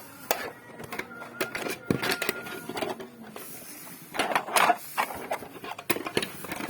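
Irregular clicks, knocks and clatter of hard objects being handled, with a louder run of clattering about two-thirds of the way through.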